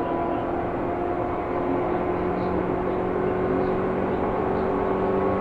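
Seibu New 2000 series electric commuter train heard from inside the car while running: a steady rumble of wheels and track with several steady motor tones that rise slightly in pitch.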